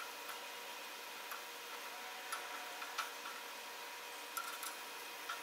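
Meat frying in a skillet on a Coleman camp stove: a steady, quiet hiss with scattered sharp pops and ticks.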